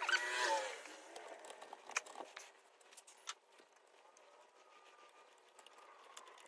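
Quiet hand work on an outboard's fuel line: the rubber line pushed onto its carburetor fitting with a brief squeak near the start, then a few light clicks and taps as its hose clamp is tightened with a screwdriver.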